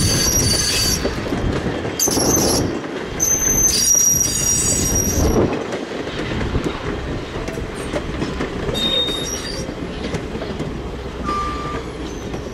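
Passenger coaches rolling past on jointed track with a steady low rumble, and the wheels squealing shrilly in several high-pitched bursts: near the start, about two seconds in, again from three to five seconds, and once more near nine seconds.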